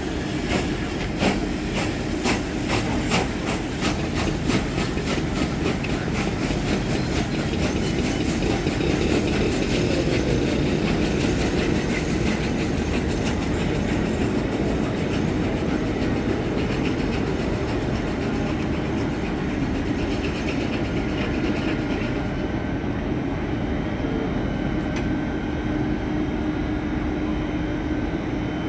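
Train rolling past, its wheels clicking regularly over rail joints for the first half, then settling into a steady rumble with a low hum.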